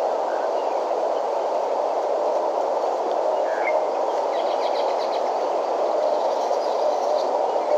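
Steady outdoor noise hiss with a few faint, short bird chirps scattered through it, a cluster of them in the middle.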